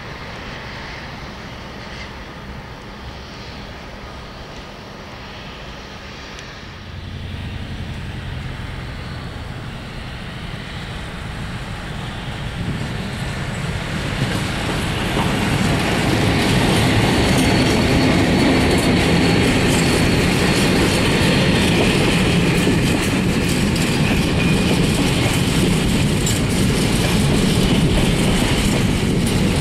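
A diesel-hauled container freight train approaching and passing close by. The sound builds through the middle as the locomotive draws level, then becomes a loud, steady rumble and clatter of the wagons' wheels on the rails.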